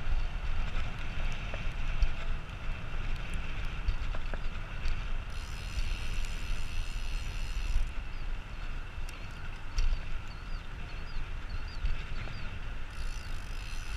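Wind buffeting a handlebar-mounted action camera's microphone as a road bike rolls along a concrete path, with a steady low rumble and hiss of the ride.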